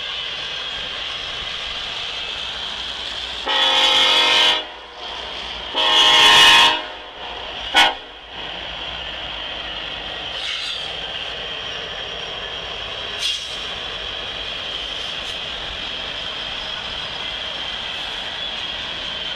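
Diesel locomotive's multi-chime air horn blowing two long blasts and a short one, the second the loudest, over a steady background hiss.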